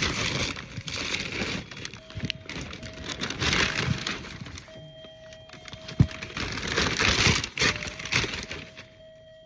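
Crackling and rustling of gift packaging being handled and pulled open, with a sharp snap about six seconds in.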